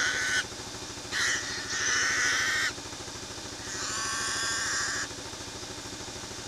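Feral pig squealing in harsh, repeated bursts while held by pig dogs, the last squeal the longest at about a second and a half; the squealing stops about five seconds in.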